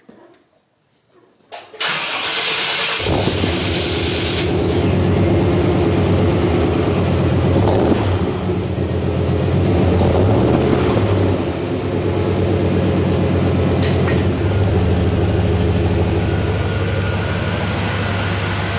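An engine cranked by its starter, catching about three seconds in and then running steadily, with a brief rise in revs near the middle.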